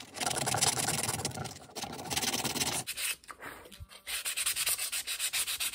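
Hand-sanding a poplar wood block with sandpaper: quick rubbing strokes that ease off for about a second around three seconds in, then start again.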